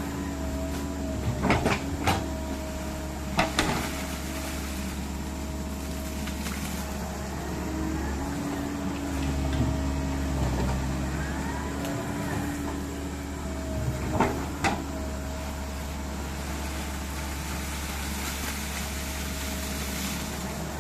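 Komatsu PC130 hydraulic excavator running: a steady diesel drone with a hydraulic whine that shifts in pitch as the machine works. Sharp metal clanks come in pairs a little over a second in, at about three and a half seconds, and again around fourteen seconds.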